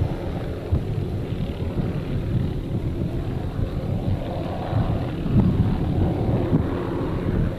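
Spatter cone vent in Kilauea's Pu'u O'o crater erupting lava: a steady low rumble with uneven surges, the strongest about five seconds in.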